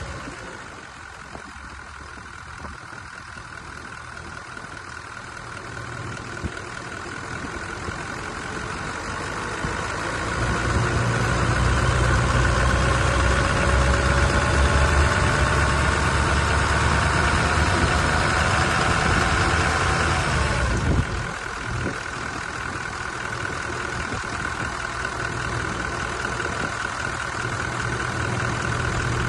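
Toyota 1VD V8 diesel engine running, its revs climbing slowly for over ten seconds and then dropping back to idle about two-thirds of the way through. The noise is put down to a faulty camshaft.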